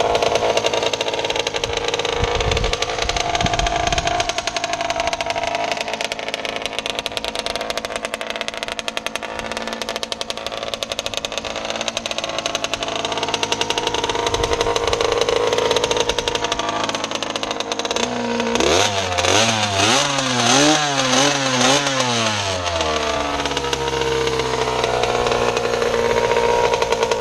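Small 125cc engine of a homemade mini Banshee ATV running steadily. About two-thirds of the way through, a series of quick throttle blips makes the pitch rise and fall several times before it settles back to idle.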